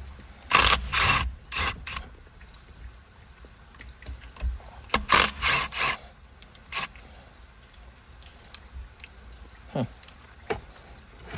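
Hand tools and loose metal parts being handled: a few short clusters of scraping and clattering, then two brief falling squeaks near the end.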